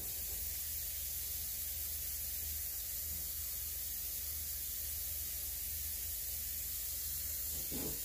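Kitchen faucet running cold water into a stainless steel stockpot as it fills: a steady hiss.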